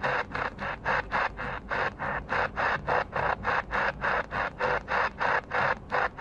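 Static hissing from a Tecsun PL-365 receiver's speaker, chopped into short bursts about four times a second as the radio steps upward in 9 kHz tuning steps, each step briefly cutting the audio.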